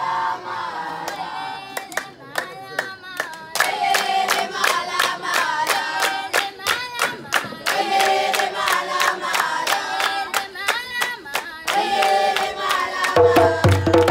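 Music: singing over a steady clapped beat. A low bass comes in near the end.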